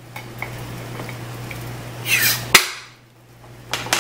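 Kitchenware being handled over a steady low hum: a few light clinks, then a short scraping clatter about two seconds in that ends in a sharp knock.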